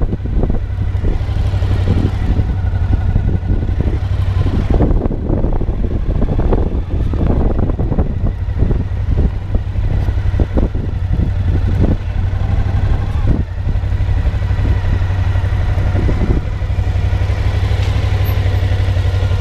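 Motorcycle engine running at low speed with a steady low drone, picked up from the rider's on-bike camera, as the bike rolls slowly and pulls up to a stop.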